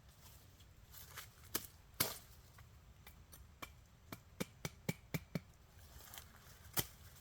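Sharp chopping strikes on wood, irregular at first, then a quick run of about six strikes in the middle, with a loud single strike near the end.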